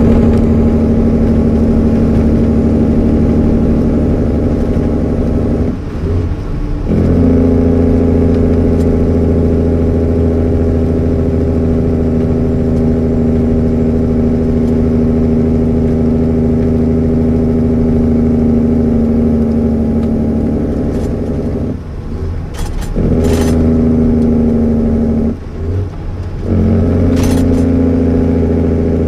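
The 470 hp Mack E7 inline-six diesel of a 1993 Mack CH truck running on straight pipes, heard from inside the cab as it pulls steadily down the road. The drone dips out briefly three times: about six seconds in, at about twenty-two seconds and at about twenty-five seconds. A few sharp clicks come near the end.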